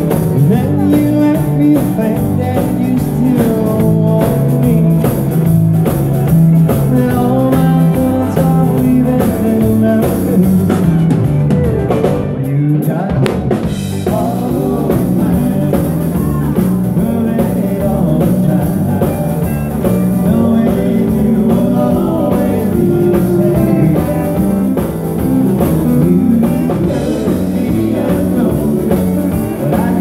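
Live band playing a song: drum kit, bass guitar and electric guitar with a singer, in a steady dance rhythm.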